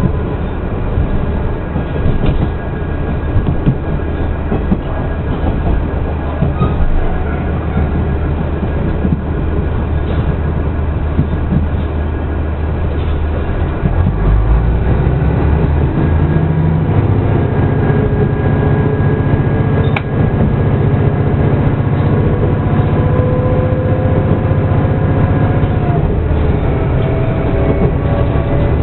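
Running noise heard inside a Ban'etsu West Line train: a steady low rumble with scattered clicks of the wheels over rail joints. About halfway through the drone grows louder and a whine slowly rises in pitch as the train gathers speed.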